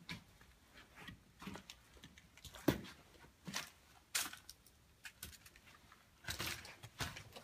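Irregular footsteps, scuffs and small knocks on a floor littered with debris and insulation, with a longer rustle about six seconds in.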